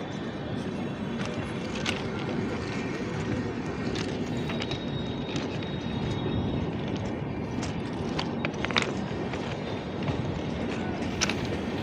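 Express passenger train departing and rolling past: a steady rumble of wheels on the track, with a few sharp metallic clicks scattered through it.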